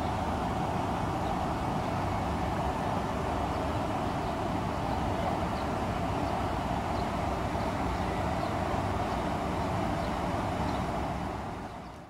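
Steady outdoor urban background noise heard from high above a city, an even rushing hum with no clear single source, fading out near the end.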